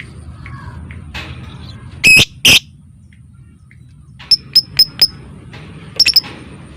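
Lovebird giving short, shrill chirping calls: two loud calls about two seconds in, a quick run of four sharp chirps around four and a half seconds, and another short burst near the end, over a low steady background noise.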